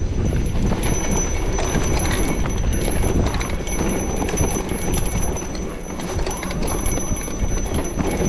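Electric mountain bike riding a rough dirt trail: a steady low rumble of wind and tyres, with frequent small rattling knocks from the bike over the ground.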